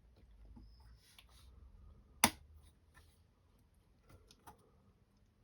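Small clicks and taps of drone frame parts and screws being handled and fitted by hand, with one sharp click about two seconds in.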